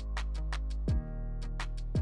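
Background music with a steady beat: deep drum hits about once a second and sharper clicks between them over sustained low notes.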